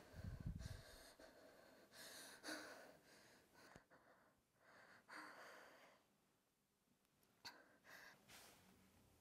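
Near silence with a few faint, soft breaths spread a couple of seconds apart.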